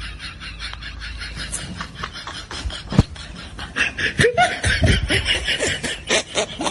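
Laughter in quick repeated bursts, building in the second half, with one sharp smack about three seconds in.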